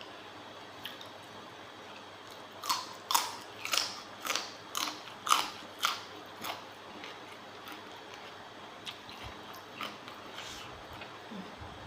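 Someone chewing crunchy food close to the microphone: a run of about eight crisp crunches, roughly two a second, followed by a few fainter ones.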